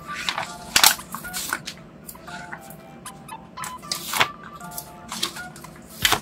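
Crackly rustling and peeling of glossy sticker paper as stickers are pulled off their backing sheet and handled, in short irregular bursts, the loudest about a second in and near the end. Faint background music runs underneath.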